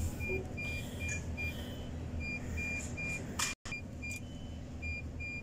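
MAN TGS 21.400 truck's six-cylinder diesel engine idling, heard from inside the cab, run to build up air pressure so the brakes will hold. Over it a dashboard warning buzzer sounds in runs of short high beeps, a few a second. The sound cuts out for an instant about three and a half seconds in.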